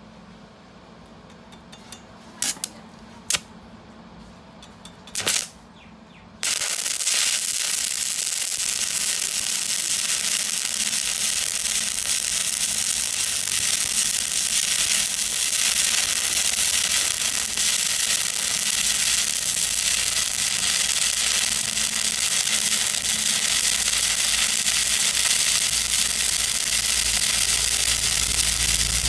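A few sharp clicks, then about six seconds in an electric welding arc strikes and crackles and sizzles steadily without a break.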